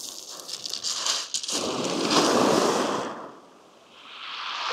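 Waves breaking on a shingle beach. A crackle of pebbles opens, then a wash swells and fades, and another builds near the end.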